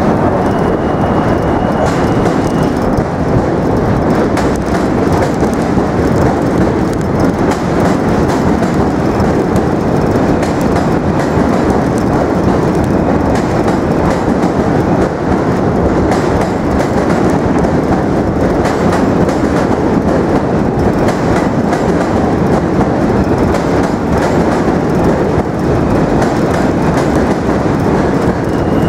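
A passing train: a loud, steady rumble of the train running along the rails that holds the whole time, with a faint high whine in the first couple of seconds.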